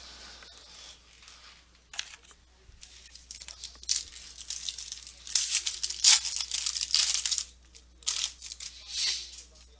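Foil trading-card pack being torn open by hand, its wrapper crinkling in a run of irregular crackling bursts that are loudest about halfway through.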